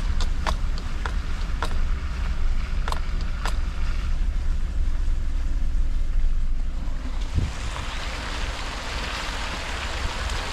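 A vehicle driving on a flooded road. A low engine and tyre rumble with scattered sharp clicks gives way, about seven seconds in, to a loud hissing rush of water as the tyres plough through floodwater and throw up spray.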